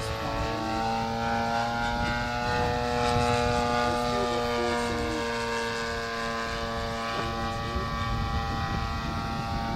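Radio-controlled model airplane's motor and propeller droning in flight, its pitch drifting gently up and down as it manoeuvres.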